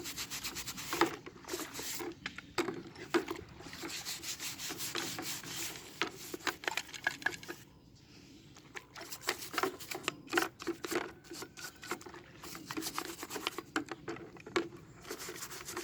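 Rubbing and scrubbing on a rusty cast-iron C-clamp during cleaning, with irregular clicks and knocks and a brief pause about eight seconds in.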